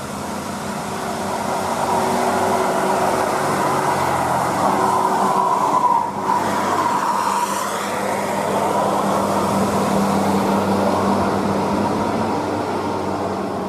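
A bus passing on the road: engine and tyre noise swell to their loudest about halfway through, with a whine that rises and then falls as it goes by.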